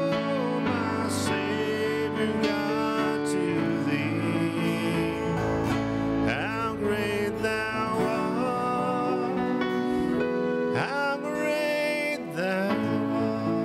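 Live worship band playing a slow song, with strummed acoustic guitar, electric guitar and keyboard, and some gliding melodic lines over them.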